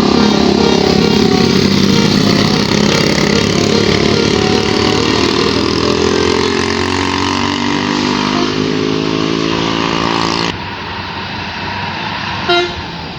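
Large tour bus's diesel engine running loud, its pitch slowly rising as it gathers speed. After an abrupt cut about ten seconds in, quieter traffic noise and a single short horn toot near the end.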